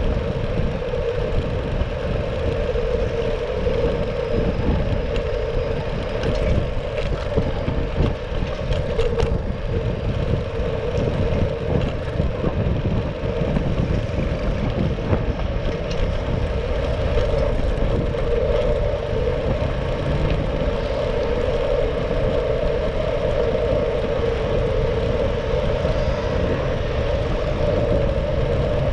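Steady wind and road rumble on a bicycle-mounted action camera while riding a Brompton folding bike, with a steady hum throughout and city traffic behind.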